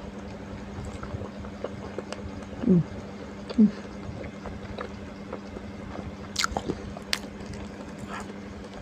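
Close-miked eating: chewing and biting into stir-fried kwetiau noodles and fried wontons, with a few sharp crunches about six to seven seconds in. There are two short low falling hums about three seconds in.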